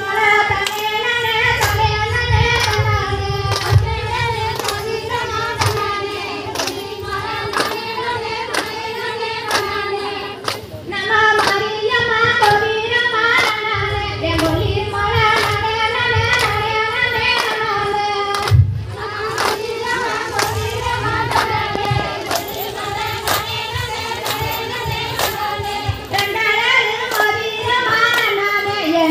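Women singing a Tamil kummi folk song through a microphone, with the dancers clapping their hands in unison on a steady, evenly spaced beat. The song breaks off briefly twice.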